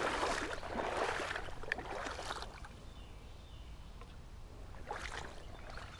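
Shallow stream water splashing and sloshing, loudest for the first two and a half seconds, then dying down, with another short splash about five seconds in.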